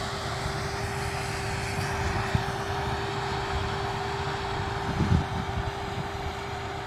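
Farm tractor's diesel engine running steadily beside a grain trailer, a constant whine over a low rumble, with a dull knock about five seconds in.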